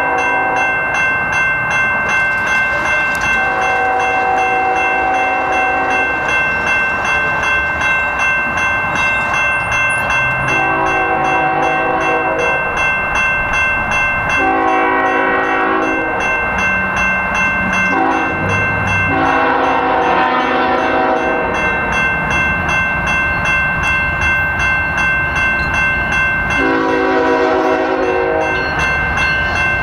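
Multi-chime air horn of an approaching Union Pacific ES44AH freight locomotive, a Nathan K5HL five-chime, sounding a series of long blasts, about six of them. A steady electronic grade-crossing bell rings throughout.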